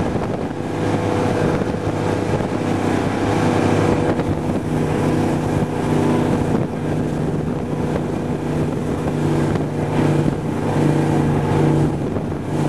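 Raider 26 powerboat's 460 cubic-inch Ford big-block V8 running hard at speed through a Volvo Penta DPX drive, with water rushing and wind on the microphone. The engine note shifts slightly a few times.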